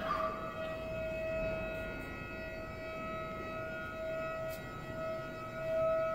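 Electric motor whining steadily at one pitch.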